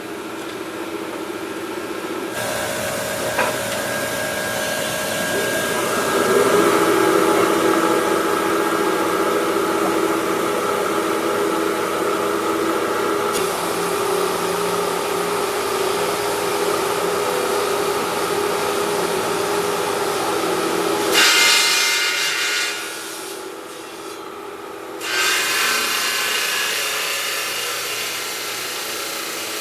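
Stone-cutting and grinding machinery running, with a steady whine from about six seconds in. The sound changes abruptly several times, dropping briefly near the end before the noise comes back.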